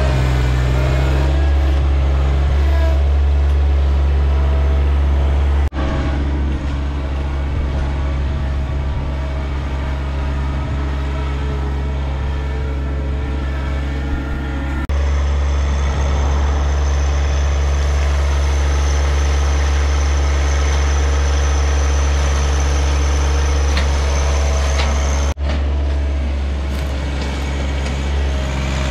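John Deere compact diesel tractor engine running steadily under working throttle, a strong low hum. It breaks off abruptly three times and resumes at once.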